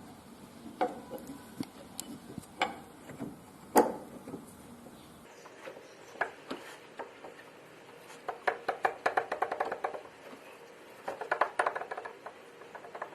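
Light metal knocks and clinks as a new bearing and clutch pulley are fitted onto a car's A/C compressor, with a few single knocks at first and then quick runs of light taps in the middle and near the end.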